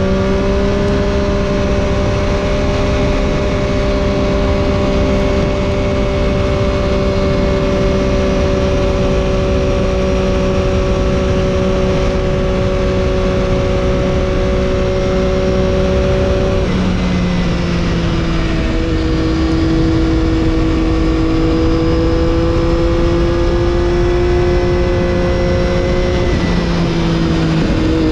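Triumph Daytona 675's inline-triple engine with an Arrow exhaust, heard from onboard while cruising at steady revs. Its pitch drops abruptly twice, about two-thirds of the way in and again near the end, as the rider shifts up, all under a steady rush of wind noise.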